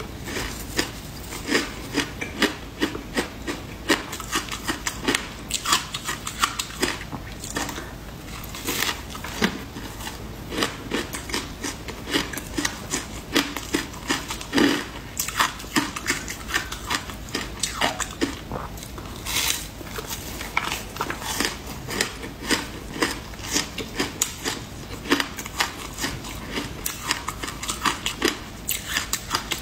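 Close-miked crunching and chewing of frozen passion-fruit ice dusted with matcha, sharp crunches following each other in quick, irregular succession.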